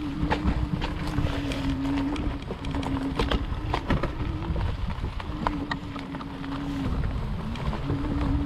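RadRover e-bike's electric hub motor whining at one steady pitch, cutting in and out several times as the power comes on and off, over a steady wind rumble on the microphone and scattered sharp clicks and ticks from the bike on rough trail.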